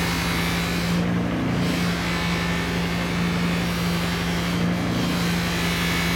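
An electric workshop machine running steadily with a low hum and a hiss. The hiss drops away briefly twice, about a second in and again near the end.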